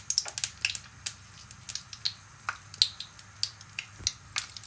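Mustard seeds popping in hot coconut oil in an iron kadai: irregular sharp pops, about three a second. This is the tempering stage, the sign that the oil is hot enough.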